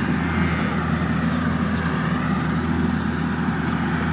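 A vehicle's engine running steadily with a low, even hum, as it tows a trailer of old hay.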